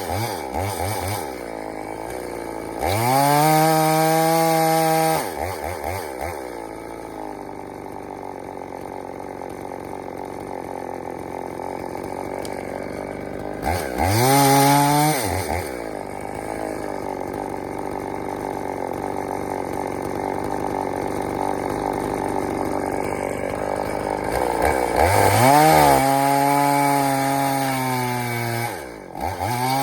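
Two-stroke EFCO chainsaw running at idle between revs, and three times revved up to a high steady full-throttle whine for a second or two before dropping back, then revving up again at the very end.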